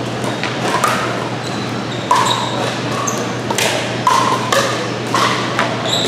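Pickleball rally: paddles striking the hollow plastic ball back and forth, a string of sharp hollow pocks about one or two a second.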